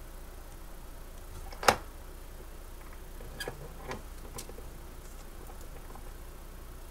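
Small handling sounds at a desk: one sharp tap about two seconds in, then a few light clicks and soft rustles as a sheet of white paper is handled over a small box.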